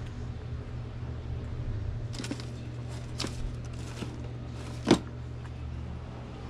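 A steady low hum with a few sharp clicks and knocks, the loudest about five seconds in.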